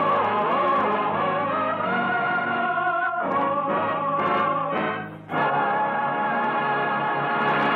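Classical, operatic-style singing with orchestral accompaniment: sung phrases of held notes, broken off briefly twice, ending on a long held chord. The sound is narrow and dull, as on an old radio transcription recording.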